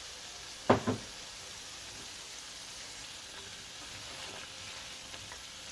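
Boiled chickpeas and cauliflower sizzling steadily in hot oil in a frying pan as they are stirred with a spatula. A single sharp knock comes just under a second in.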